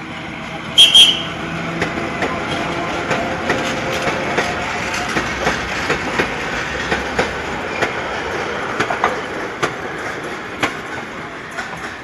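Old electric suburban-railway locomotive hauling freight wagons slowly past: a steady rolling rumble with many sharp clicks of wheels over rail joints. A brief, loud high-pitched tone sounds about a second in.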